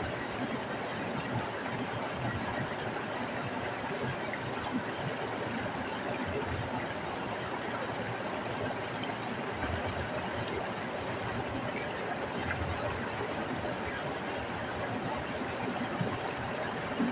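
Small stream flowing over rocks: a steady rush and splash of water.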